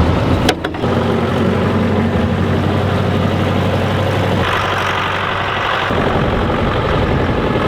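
Old farm tractor's engine running steadily, with a stretch of added hiss and less low hum for about a second and a half near the middle.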